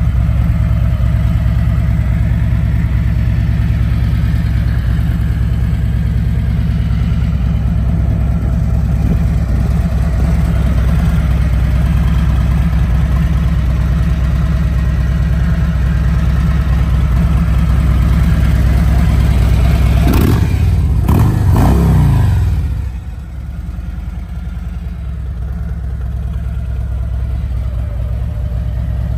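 A 2018 Harley-Davidson Police Electra Glide's Milwaukee-Eight 107 V-twin idles steadily through Rinehart mufflers. About two-thirds of the way through it is revved twice in quick succession, then it drops back to a quieter idle.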